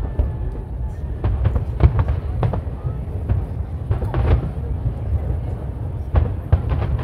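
Aerial firework shells bursting overhead, a rapid, irregular series of bangs over a continuous low rumble.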